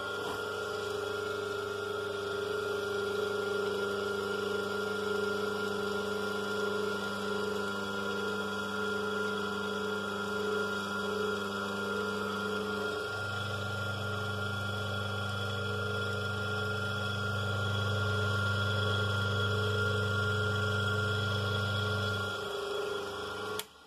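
Split-phase induction motor running unloaded with a steady electrical hum. The deep part of the hum grows louder about halfway through. The hum stops shortly before the end, followed by a brief click.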